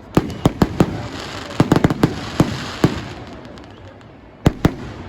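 Fireworks going off: a rapid run of sharp bangs through the first three seconds, a lull, then two more bangs near the end, over a steady background rumble.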